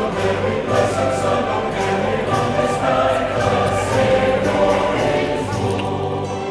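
A choir singing, laid over the pictures as background music.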